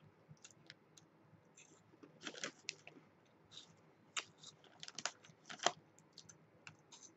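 Faint, irregular crunching clicks of Cheetos Puffs being chewed close to the microphone, with the foil snack bag crinkling as it is handled.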